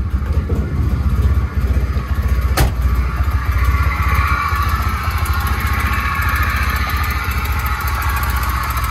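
1988 Volvo 240's red-block four-cylinder engine running at idle, which it struggles to hold with the idle air control valve's hoses blocked off. A single sharp click about two and a half seconds in.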